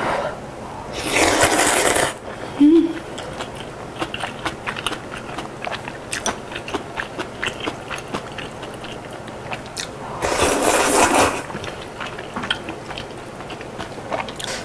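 Close-up eating: a long slurp of kalguksu noodles wrapped in kimchi about a second in, then a short low hum. Next comes crunchy chewing of the cabbage kimchi, heard as many small crackles and clicks, and a second long slurp about ten seconds in.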